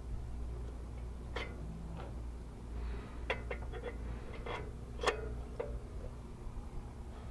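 Scattered light clicks and taps of metal parts being handled as a new EGR valve is fitted in an engine bay, over a low steady hum.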